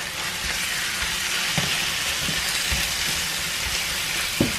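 Wilted spinach sizzling in hot oil in a frying pan with softened shallots, garlic and tomato puree, stirred with a silicone spoon. The sizzle picks up about half a second in as the spinach goes in, and there is a single knock near the end.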